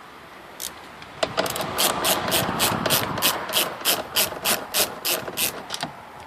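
Hand ratchet wrench clicking in a steady run, about three clicks a second, starting a little over a second in and stopping near the end.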